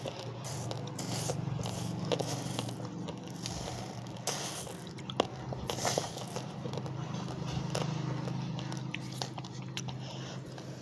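A person chewing raw, uncooked rice grains close to the microphone, with scattered small crunches and clicks as the grains break between the teeth. A steady low hum runs underneath.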